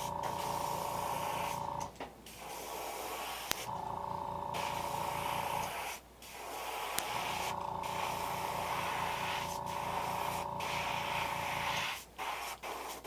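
Iwata HPCS airbrush spraying a thin coat of green acrylic paint at about 15 psi: a steady hiss over a low pulsing hum. The spray stops briefly three times, about two, six and twelve seconds in.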